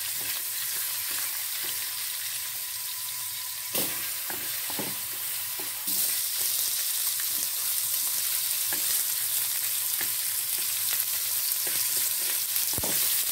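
Pieces of snakehead fish sizzling as they fry in oil in a steel wok, browning, with a few clicks of cooking chopsticks against the pan as the pieces are turned. The sizzle gets louder about six seconds in.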